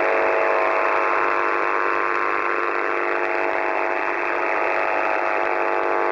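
Shortwave radio received in single sideband on the 6922 kHz Russian military channel between voice transmissions: steady static hiss with several constant whining interference tones, squeezed into a narrow, thin receiver passband.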